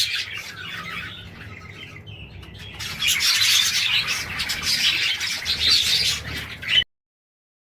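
A flock of budgerigars chattering and warbling in a dense, continuous twitter. The chatter thins for a couple of seconds, returns loudly about three seconds in, and cuts off suddenly near the end.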